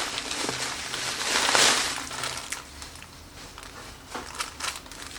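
Packaging crinkling and rustling as it is handled and opened, with a louder swell of rustling about a second and a half in, then scattered small crackles and clicks.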